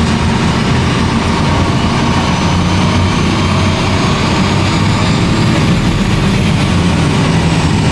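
Amphibious tour bus's engine running steadily while afloat, a loud, even low drone heard from inside the cabin, with a faint high whine above it.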